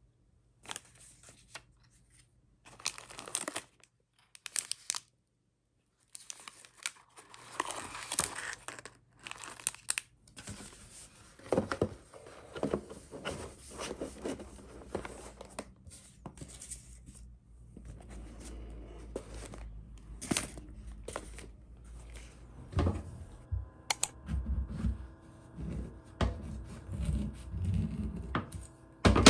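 Plastic-wrapped cakes rustling and crinkling, and a cardboard gift box being handled, in separate short bouts with silent gaps between. Near the end soft music comes in, with low knocks of a knife cutting an avocado on a wooden board.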